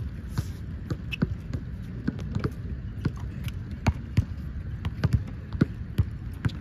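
Flat, underinflated basketball bouncing on an outdoor hard court during play, giving irregular dull thuds about two a second.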